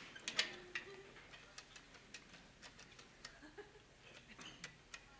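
Typewriter keys struck one at a time in slow, irregular hunt-and-peck typing: quiet, separate clacks, a few a second.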